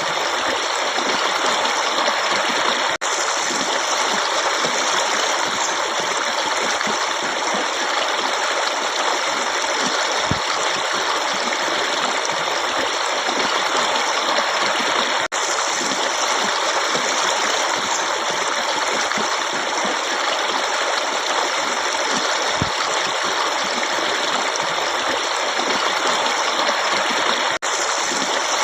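Forest stream running steadily: a continuous, even rush of flowing water, with a momentary dip in level three times.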